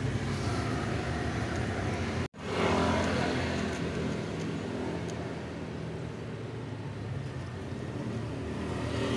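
Steady background rumble of road traffic with a low engine hum, cutting out for an instant about two seconds in.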